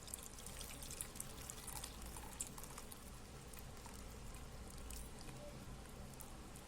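Hot turmeric milk being poured through a strainer: faint pattering and trickling of liquid, with light scattered clicks.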